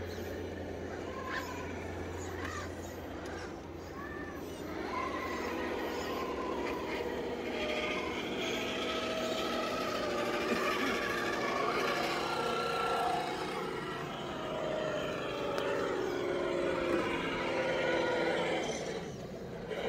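Electric motors and gearboxes of radio-controlled scale crawlers whining as they crawl, the pitch rising and falling with the throttle. It gets louder about five seconds in.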